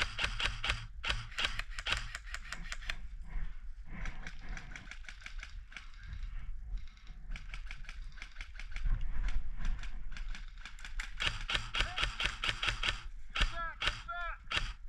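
Airsoft guns firing in long rapid streams of clicks, with a lull of a few seconds near the middle. A few short sliding chirps come in near the end.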